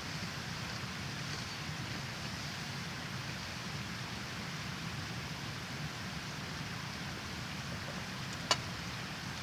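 Steady rushing of river water, with a single sharp click near the end.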